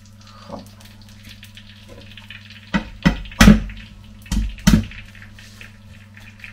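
Kitchenware clattering at the counter: five sharp knocks in about two seconds, over a steady low electrical hum.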